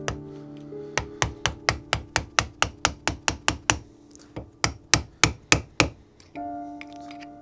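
Rapid hammer blows on a steel chisel, metal on metal, about four strikes a second in two runs with a short pause between. They are knocking the old handle wood out of the axe head's eye. Background music plays underneath.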